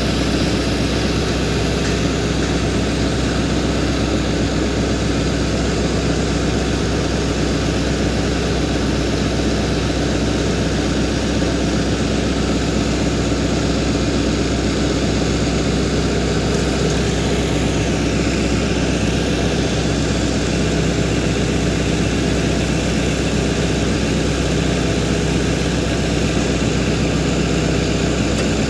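Hitachi Zaxis excavator's diesel engine idling steadily while it holds a loaded bucket of concrete still.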